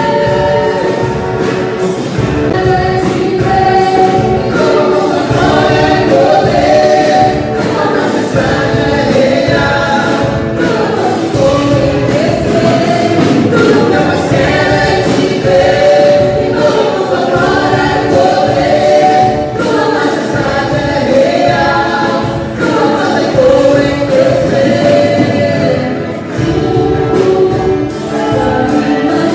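Gospel worship song with a choir singing over full instrumental backing.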